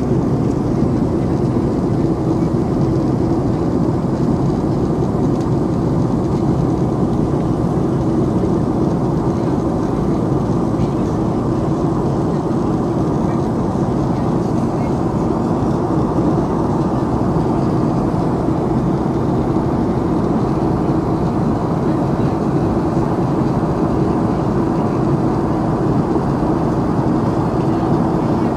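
Steady cabin roar of a Boeing 757-232 climbing out, heard from a rear window seat behind the wing: the twin turbofan engines and rushing airflow make an even, deep drone that does not change.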